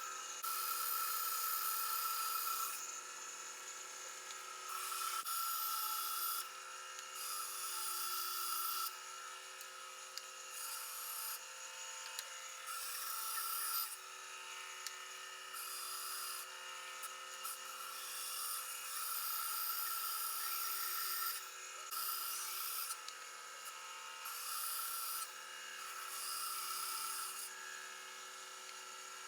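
Bandsaw running with a steady motor whine, cutting through burl wood handle scales; the cutting hiss swells and drops back every second or two as the wood is fed in and pulled back.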